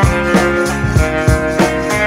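Background music: guitar-led instrumental with a steady drum beat.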